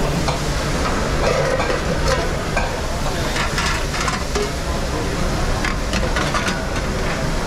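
Restaurant kitchen clatter during service: food sizzling in a pan, with metal utensils and pans clinking and scraping in scattered sharp knocks, over a steady background noise.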